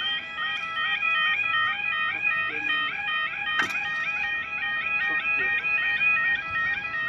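Level crossing audible warning alarm sounding continuously, an electronic tone switching rapidly back and forth between two pitches. A single sharp click about halfway through.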